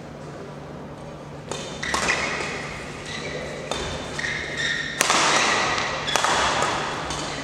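Badminton rackets striking the shuttlecock in a fast doubles rally: about seven sharp hits starting about a second and a half in, each ringing on in a large hall, with short high squeaks of shoes on the court.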